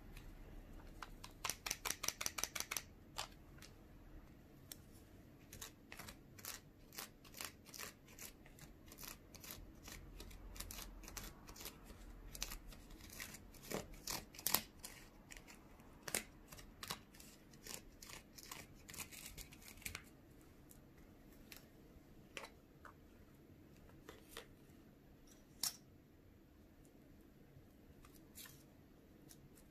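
Small plastic clicks and scrapes as a plastic spatula stirs candy cheese mix in a thin plastic tray: a quick run of about ten clicks near the start, then irregular clicks that thin out over the last third.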